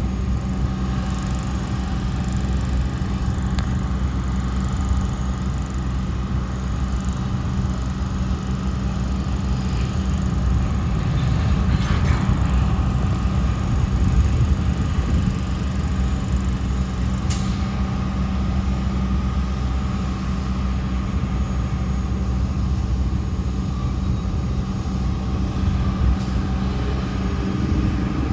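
Freight train of covered hopper cars rolling past: a steady rumble of wheels on the rails with a faint steady hum, swelling slightly about halfway through.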